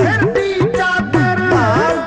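Dhadi folk music: a sarangi melody with sliding notes over dhadd hourglass drums. The drums' pitch swoops up and down in a steady rhythm of about four strokes a second.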